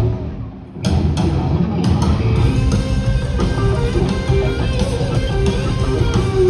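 Live rock band playing, with electric guitar and drums. The band drops out for a brief break about half a second in, then comes back in at full volume with held guitar notes over the drums.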